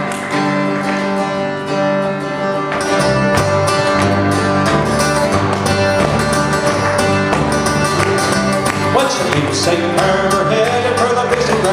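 Live folk band playing an instrumental intro on two acoustic guitars, fiddle and electric bass; the sound grows fuller in the low end about three seconds in.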